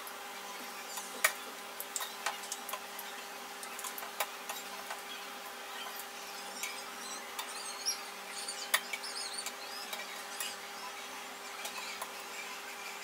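Palm-fruit fritters deep-frying in a pan of oil with a light crackle, while a wire skimmer clinks sharply against the frying pan a few times, loudest about a second in. A steady electric hum runs underneath.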